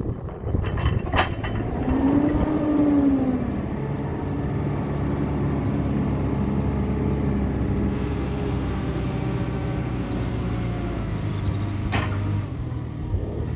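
JCB 526-56 telehandler's diesel engine running steadily under load while its hydraulic boom is raised and extended. About two seconds in there is a brief rise and fall in pitch. There are sharp knocks about a second in and again about twelve seconds in.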